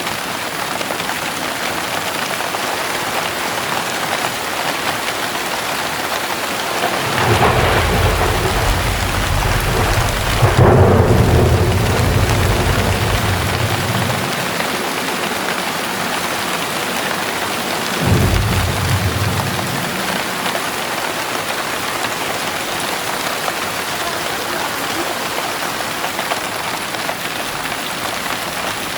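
Heavy rain pouring steadily, with a long roll of thunder that builds a quarter of the way in, peaks and rumbles for several seconds, then a second, sharper thunderclap past the middle that dies away within about two seconds.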